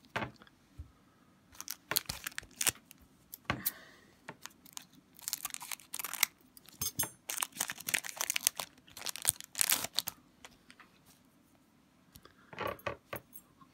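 Upper Deck Portfolio hockey card pack being cut open with scissors, its wrapper crackling and crinkling in a series of sharp bursts. Near the end, cards rustle as they are slid out and handled.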